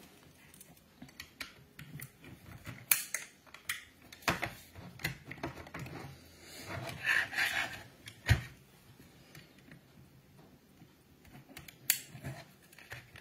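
Small plastic model railway parts being handled and set down on a cutting mat: scattered clicks and taps, with a sharper knock about eight seconds in.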